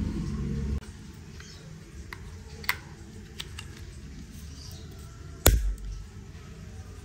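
Hands handling items during an unboxing: a low rumble that stops abruptly under a second in, then a few light, sharp clicks and taps, and one heavier knock about five and a half seconds in.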